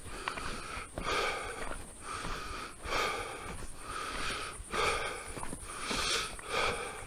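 A hiker's heavy breathing close to the microphone, a run of short breaths about one a second, as he walks a climbing trail.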